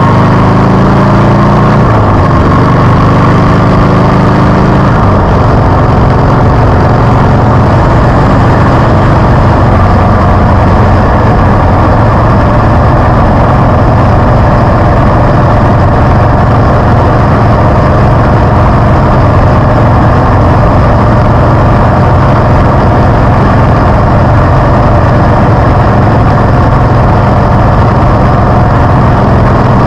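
Harley-Davidson V-twin motorcycle engine under way. Its pitch climbs over the first few seconds with a couple of gear changes, then settles into a steady cruising drone.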